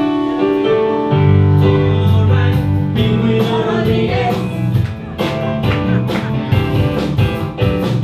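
Rock band playing a song: guitar and bass holding notes over drum hits, with a voice singing.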